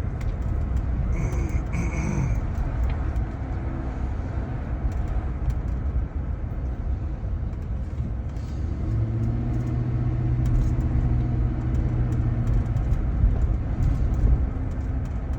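Steady low rumble of a vehicle, with a steady engine hum joining for a few seconds past the middle. A brief high-pitched tone sounds about a second in.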